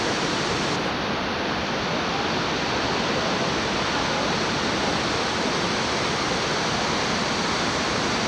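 Horseshoe Falls at Niagara: the steady, loud rush of a huge volume of falling water, an even roar with no breaks or changes.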